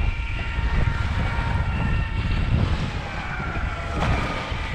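Strong onshore wind buffeting the microphone in a steady low rumble, over choppy bay water splashing against a marsh-grass bank.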